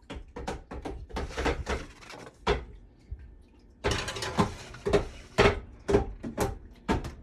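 Kitchen oven door being opened and a baking sheet of cookies slid in, with a run of metallic knocks and clatters.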